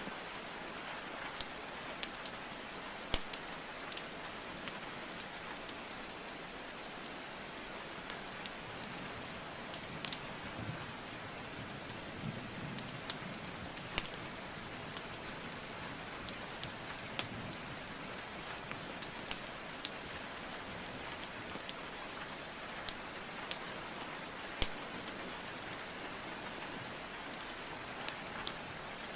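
Steady rainfall with a wood fire crackling over it: irregular sharp pops and snaps of burning logs scattered throughout.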